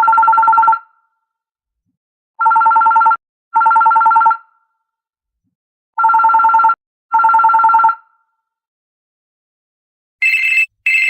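Telephone ringing in a double-ring pattern, two trilling rings then a pause, repeating. Near the end a different, higher-pitched ringtone starts with two short rings.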